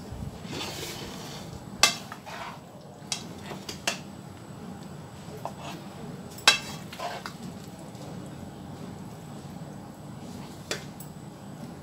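Wooden slotted spoon scooping cooked shawarma meat out of a frying pan onto a wooden plate: a short scrape about a second in, then a handful of separate knocks of spoon on pan and plate, the loudest a little past halfway.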